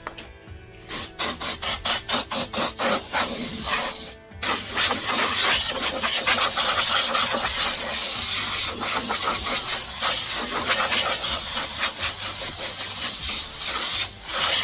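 Compressed air blowing sanding dust off a freshly sanded wheel rim: a quick series of short puffs, then a steady hiss of air for about ten seconds that cuts off suddenly.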